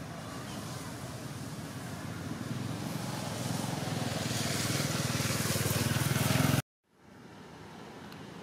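A motor vehicle's engine running and growing steadily louder, as if approaching, then cutting off suddenly about six and a half seconds in.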